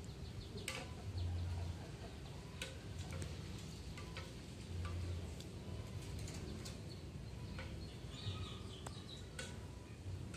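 Quiet background ambience: scattered faint clicks and ticks over a low rumble, with a few faint bird-like chirps about eight seconds in.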